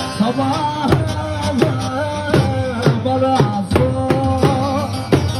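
Live Turkish arabesk music played loud through PA speakers: a male singer sings a drawn-out line over a steady drum beat and a backing instrumental melody.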